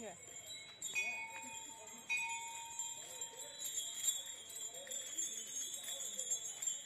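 Bells on a walking elephant jingling and ringing, with fresh strikes about one and two seconds in.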